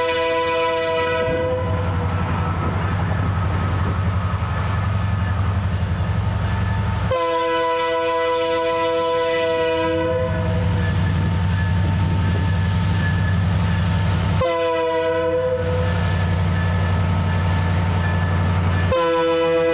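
Diesel freight locomotive sounding its multi-chime air horn over the steady drone of its engine: a blast fading out about a second in, then a long blast, a short one and another long one near the end. This is the long-long-short-long grade-crossing signal.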